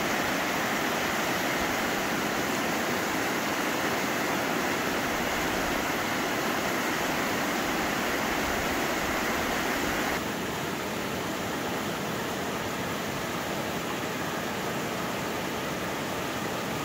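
Steady rush of a mountain river's white-water rapids over rocks. It drops somewhat in level about ten seconds in.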